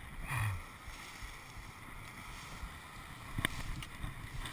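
Wind and handling rumble on the camera's microphone as it moves through brush, with a short low sound just after the start and a sharp knock about three and a half seconds in.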